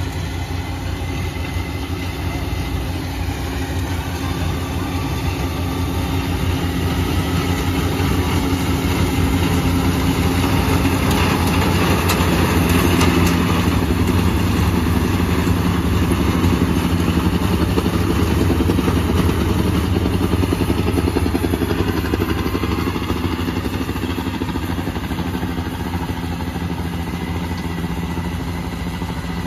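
Yanmar 82 rice combine harvester running steadily as it harvests, its diesel engine and threshing machinery droning together. The sound grows louder toward the middle as the machine comes close, then eases as it moves away.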